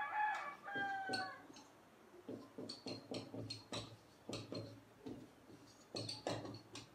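Marker pen writing on a whiteboard: two short, high squeaks in the first second, then a run of quick scratchy strokes and light taps as letters are written.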